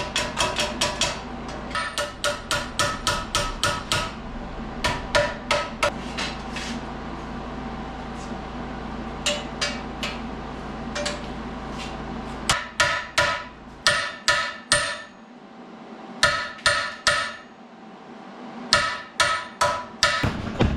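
Hammer-and-dolly work on the steel sub rail of a 1932 Ford three-window coupe, shaping it straight. The strikes come in quick runs of about seven ringing blows a second, with short pauses between runs.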